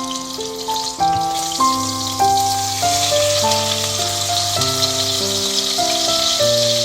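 Melodic background music with a bass line over a steady sizzle of top sirloin steak frying in a pan; the sizzle grows louder about a second in.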